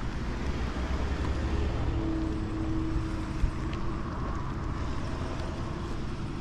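Cars and pickup trucks passing close by on a paved road: a steady rush of tyre and engine noise, with a single short knock about three and a half seconds in.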